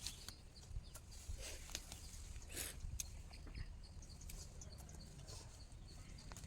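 Faint outdoor background with a low steady rumble and scattered short clicks and knocks.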